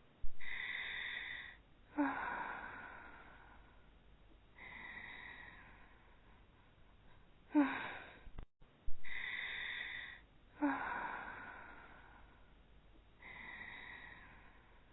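Voice-acted snoring of two sleeping anime girls: long wheezy snores on the in-breath alternate with sudden, louder breaths that trail off, about four breaths every eight seconds. The same stretch of snoring repeats after a brief gap about eight and a half seconds in.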